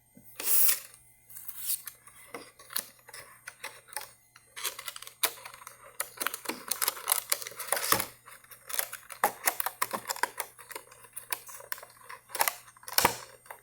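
Small items and packaging being handled close up: an irregular run of light clicks, taps and rustles.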